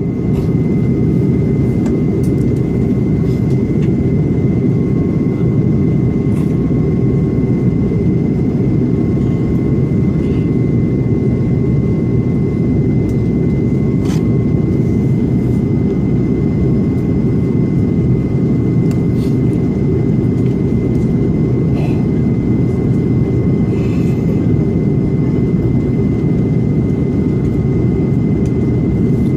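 Steady cabin noise inside an Airbus A330-300 airliner: a constant deep rumble of the jet engines and airflow, with a thin steady whine above it and a few faint ticks.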